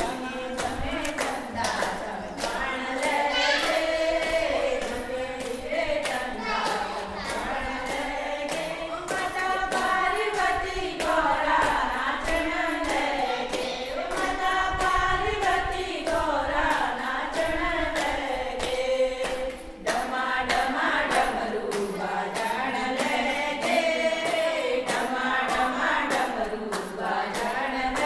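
A group of voices singing a devotional bhajan together without instruments, with regular hand clapping keeping the beat. There is a short break about 20 seconds in.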